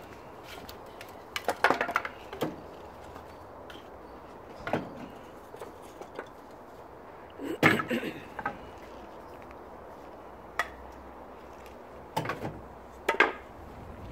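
Split wooden kindling knocking and clattering as it is put into a barrel stove's firebox, in short clusters of sharp knocks separated by pauses of a few seconds.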